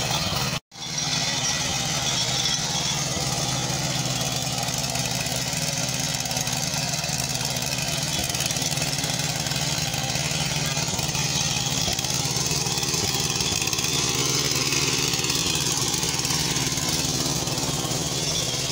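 A 7.5 HP petrol engine on a walk-behind power weeder runs steadily under load as its rotary tines till soil. The sound cuts out sharply for a moment under a second in, then the steady engine running resumes.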